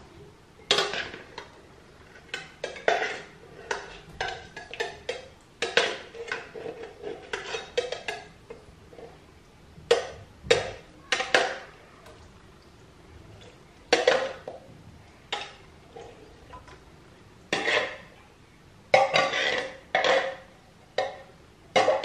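Canned green beans being emptied into a frying pan: an opened tin can knocking and scraping against the pan in irregular clatters as the beans are shaken and pulled out and drop in.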